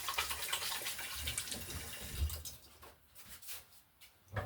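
Kitchen tap running as hands are rinsed under it. The water stops about two and a half seconds in.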